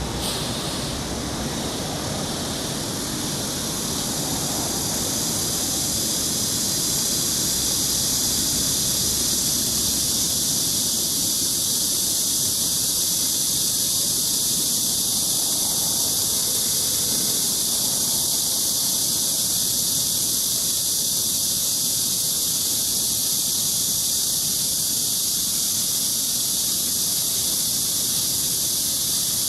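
Firework smoke device hissing steadily as it burns and pours out smoke, building over the first few seconds and then holding level.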